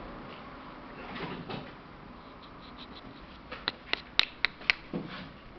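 Five sharp clicks in quick succession about three and a half seconds in, over a faint steady background, then a softer knock.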